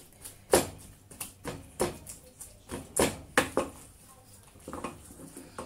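Wooden spoon pounding boiled potatoes and green peas in a stainless steel pot, mashing them into mukimo: a string of irregular knocks, a couple to each second, thinning out after about four seconds.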